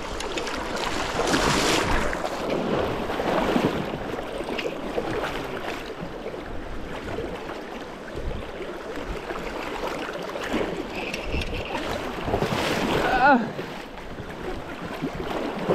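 Shallow river current rushing and churning around a wading angler, with wind buffeting the microphone. A brief wavering squeal cuts through near the end.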